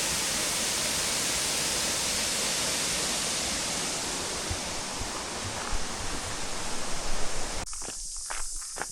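Waterfall rushing steadily with a strong flow, easing a little over time. Near the end the water noise cuts off abruptly and footsteps take over.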